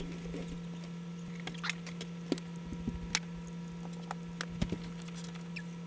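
Scattered small clicks and taps as a Contax G1 camera body is handled and its cover taken off, over a steady low electrical hum.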